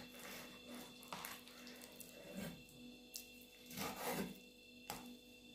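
Faint knife work on raw beef liver: scraping and rubbing strokes with a few soft knocks against the board as the liver is cut open for thin slicing.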